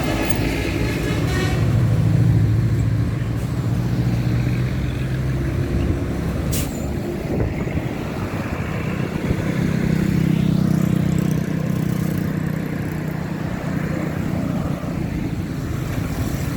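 Heavy vehicles driving past on a road: deep engine drone swells as one passes in the first few seconds and another from about nine to thirteen seconds in, with a short sharp hiss about six and a half seconds in. A multi-tone horn cuts off in the first second or two.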